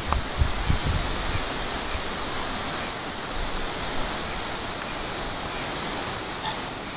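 Insects chirping in a steady, high pulsing rhythm over an even outdoor hiss, with a few low thumps in the first second.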